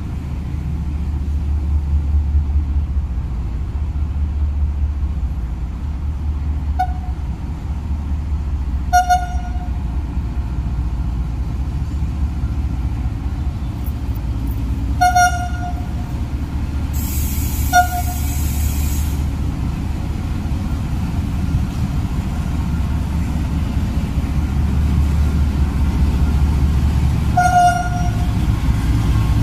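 KTMB Class 26 'Blue Tiger' diesel-electric locomotive running with a steady low engine rumble as it slowly pulls a cement tank train past. It sounds five short horn toots spread through, the last near the end, and a hiss lasting about two seconds comes near the middle.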